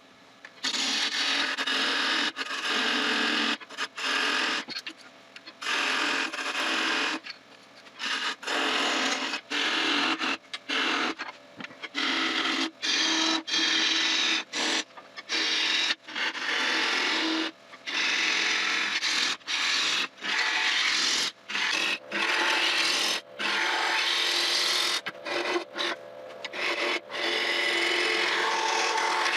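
Carbide-tipped Easy Wood Tools Easy Rougher cutting a spinning oak tenon on a wood lathe. It makes a rough scraping hiss, broken by many brief gaps as the tool comes off the wood and goes back on for the next pass.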